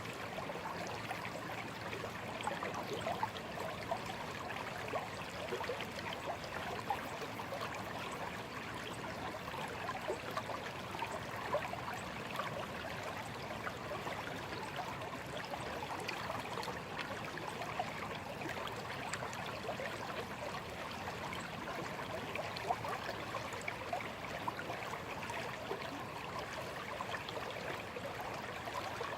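A shallow stream running and babbling over stones: a steady rush of water with many small quick splashes and gurgles.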